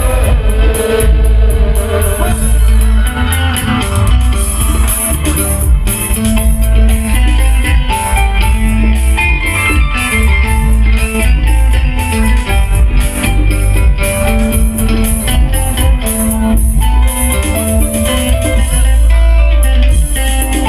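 Live band playing an instrumental passage with no singing: guitar and electric bass guitar over a steady beat.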